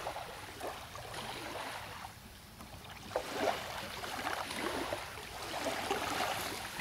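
Small waves lapping and sloshing irregularly against wooden pier pilings.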